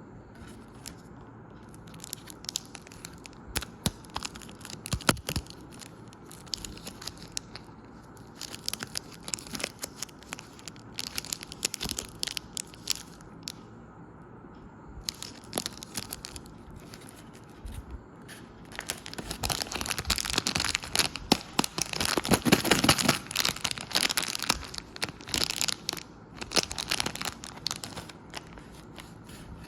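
Chocolate wrappers being torn open and crinkled by hand: intermittent crisp tearing and crackling that grows busiest and loudest a little past the middle.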